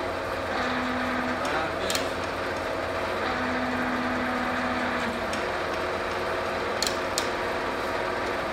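Cincinnati Cinova 80 vertical milling machine running under power, its drive and gearbox giving a steady mechanical hum with a whine. A second, lower tone comes in twice, for about one and then two seconds, as the power feeds are run, and feed levers click sharply about two seconds in and twice in quick succession near the end.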